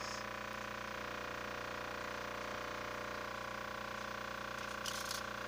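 Steady mechanical hum of a running motor, with a brief splash of water near the end.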